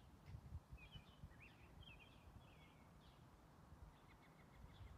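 Faint outdoor ambience: small birds chirping in quick twittering bursts, mostly in the first couple of seconds, over a low uneven rumble.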